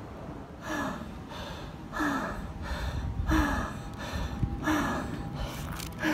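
A runner gasping for breath after an all-out 300 m run, about one heavy, voiced breath every second and a half, each falling slightly in pitch.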